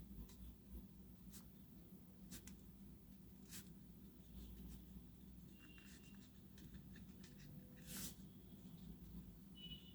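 Ballpoint pen with a slim jotter refill writing on paper: faint scratching of the tip, with a few light ticks as the pen lifts and touches down, the clearest about eight seconds in.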